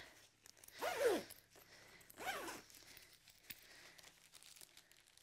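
Zipper on a soft-sided fabric pet carrier being pulled shut across its top. It comes as two short rasps, about a second in and again a little after two seconds, followed by faint handling of the bag.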